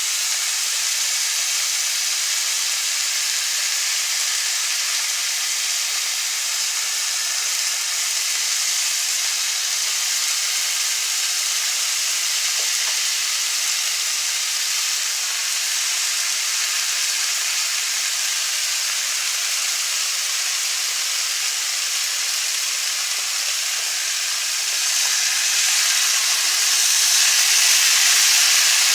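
Chicken and vegetable stir fry sizzling steadily in a pan with the sauce just added, getting louder near the end.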